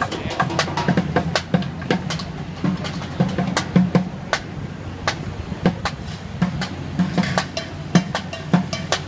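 Street drummer beating upturned plastic buckets in quick, sharp strikes, with a steady traffic rumble underneath.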